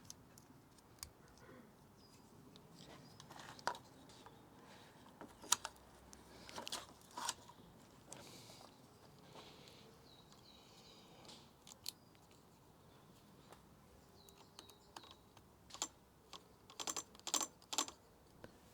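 Scattered faint clicks and small knocks of parts being handled while an e-bike handlebar controller is fitted, with a quick run of clicks near the end.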